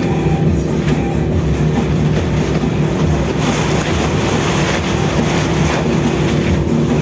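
Steady low mechanical drone of a ship's engine, with a hiss of wind that swells in the middle for about three seconds.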